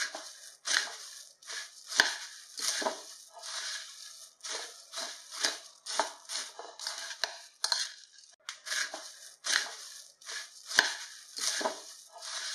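Puffed rice and peanuts being tossed with a silicone spatula in a glass bowl: a run of dry, crackly rustling strokes, about two a second. Three sharp taps of the spatula against the glass stand out as the loudest moments.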